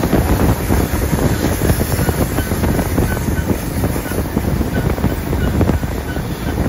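Steam-hauled passenger train running, heard from onboard: a steady rumble with quick wheel-and-rail clatter, and wind buffeting the microphone.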